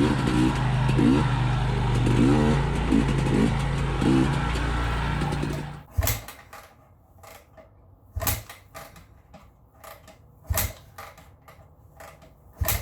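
KTM 300 XC TPI two-stroke dirt bike engine running steadily at low revs. It stops abruptly about halfway through, and after that there are only a few separate sharp knocks or clicks, a couple of seconds apart.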